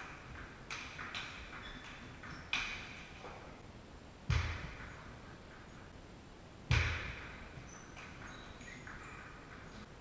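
Table tennis ball clicking off bats and table during play, with echo in the hall. Two much louder knocks with a low thud come in the second half, about two and a half seconds apart.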